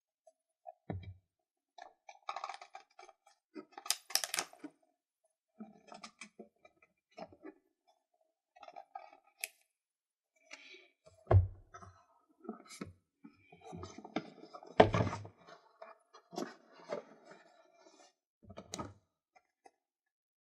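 Close-miked unboxing of a GoPro Hero 4 Silver: packaging and plastic pieces handled in stops and starts, giving scattered clicks, rustles and scrapes. There are three soft thuds, about a second in, near the middle and about three-quarters through.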